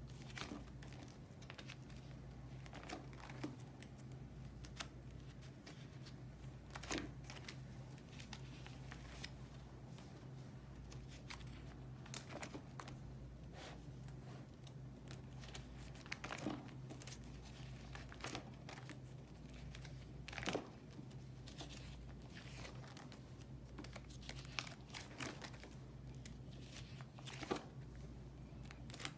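Clear plastic binder sleeves crinkling and rustling as the pages of a ring binder of photocards are turned and cards handled, with scattered crackles and a few louder clicks. A faint steady low hum runs underneath.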